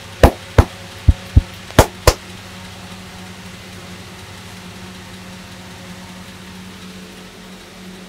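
A barber's hands striking during a head massage: six sharp slaps in three quick pairs within the first two seconds. After that there is only a steady low hum.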